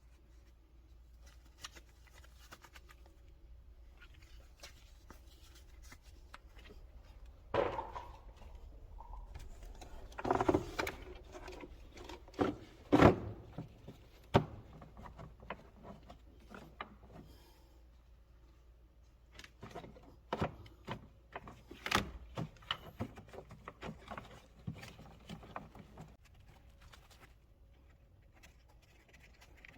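Scattered clicks, taps and knocks of hands handling parts in a car's engine bay, with a sharp, loud knock about thirteen seconds in.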